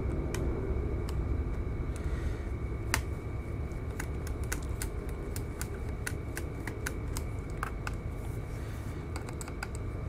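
Irregular light clicks and taps of a small screwdriver and fingers working the screws of a laptop's bottom cover, scattered unevenly, over a steady low hum.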